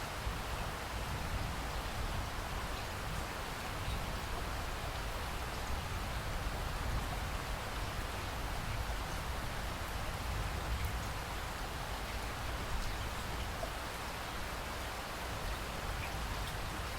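Steady rain falling, with a dense patter of drops and a low, even rumble underneath.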